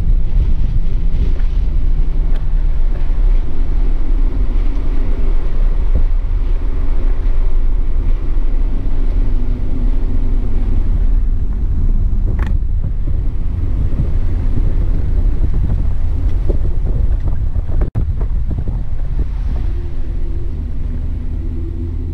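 Inside the cabin of a 2007 BMW 328i: its straight-six at light throttle with road and wind noise, a steady low rumble that eases off as the car slows and the revs fall. The sound cuts out for an instant about eighteen seconds in.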